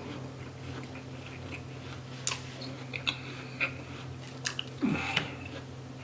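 A person chewing and biting crunchy apple slices, with sharp wet crunches and mouth clicks coming irregularly from about two seconds in and a short voiced mouth sound near the end, over a steady low room hum.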